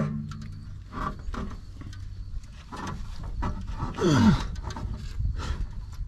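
Short knocks and scrapes over a steady low hum, with one loud groan about four seconds in whose pitch falls sharply.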